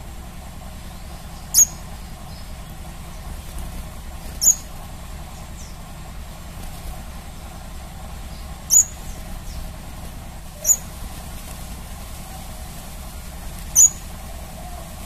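Crimson sunbird giving short, sharp, high-pitched chip calls, five single notes spaced a few seconds apart, over a steady low background hum.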